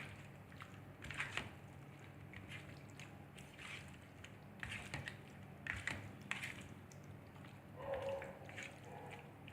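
Raw chicken being mixed with its wet spice marinade: faint, soft squishing and light scraping in scattered bursts.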